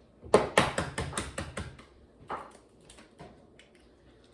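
Eggs being cracked: an eggshell is rapped on a bowl's edge in a quick run of sharp taps, then one more tap a little over two seconds in, with a few faint clicks of shell after.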